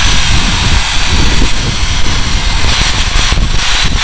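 Electric drill spinning a rotary blaster wheel against a steel keel plate, stripping off mill scale: a loud, continuous whirring rasp.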